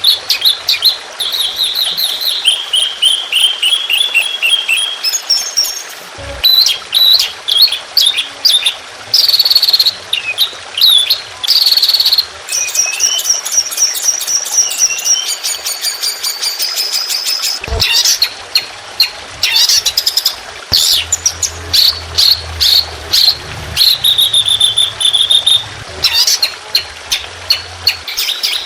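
Songbird song of the kind used as 'masteran' training material: a dense, continuous run of chirps, fast trills and rapid repeated 'shot' phrases, many notes sweeping up and down in pitch. Two brief knocks come about a quarter and two-thirds of the way in, and a low hum joins near the end.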